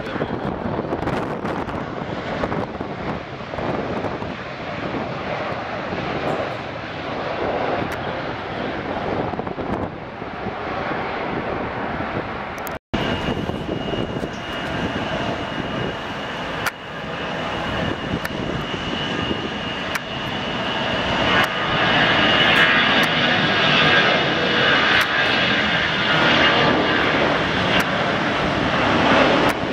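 Airliner engines running. A steady high whine comes in about halfway, and the sound grows louder over the last third. Near the middle a brief gap cuts the sound.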